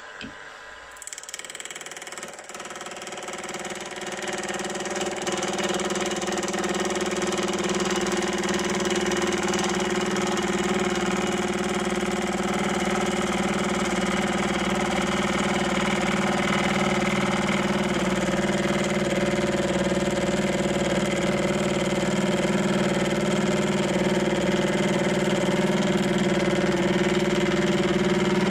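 Milling machine spindle motor starting about a second in and coming up to speed over the next few seconds, then running with a steady hum while the 10 DP gear cutter turns, cutting the next tooth of a 13-tooth gear.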